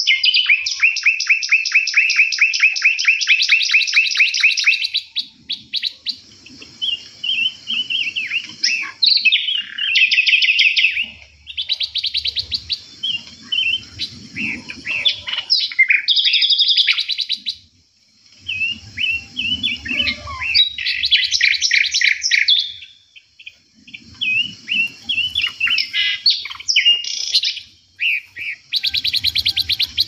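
Several songbirds in an aviary singing and chirping over one another, opening with a fast trill of rapidly repeated notes that lasts about four seconds, then varied warbled phrases and chirps with short lulls.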